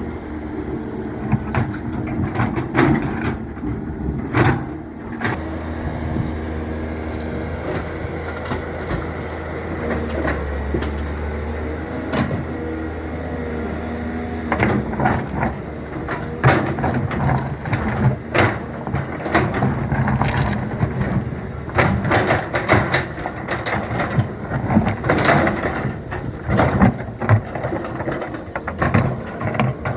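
Excavator engine running steadily, with frequent short clanks and knocks from the working machine, coming thicker in the second half.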